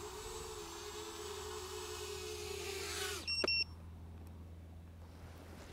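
Flywoo Explorer LR 4-inch micro quadcopter's motors and propellers whining as it comes down to land, the pitch wavering slightly, then cutting off suddenly about three seconds in as the motors stop. A quick double electronic beep follows.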